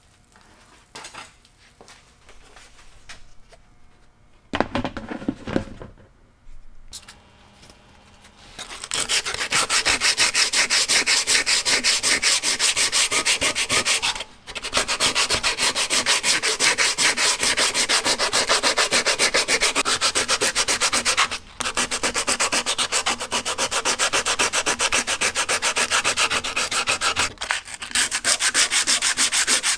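Sheet of sandpaper rubbed by hand over a wooden saw handle: rapid back-and-forth rasping strokes, stripping the old finish down to bare wood. The strokes start about nine seconds in, after a few soft thuds and handling sounds, and stop briefly three times.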